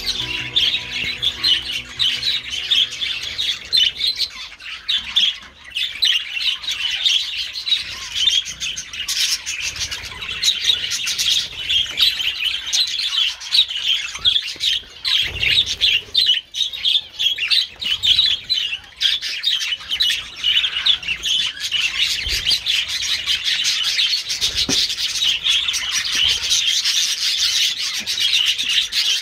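A flock of small aviary birds chirping and chattering continuously, many calls overlapping with no pause.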